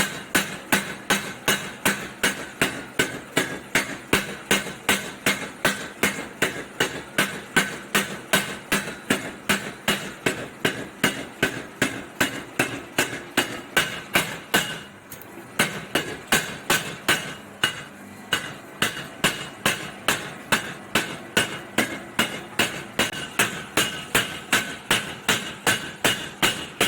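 Home-made, electric-motor-driven blacksmith's power hammer striking steadily at about two blows a second, each blow with a metallic ring. It breaks off briefly about fifteen seconds in, then resumes.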